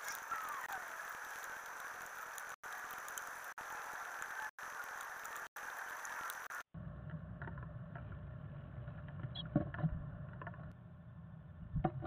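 Steady hiss from a birdhouse camera's microphone, cut off briefly four times where the clips are joined. About two-thirds of the way in it changes to a low hum, with a few scratches and knocks from the chickadee moving in the nest box near the end.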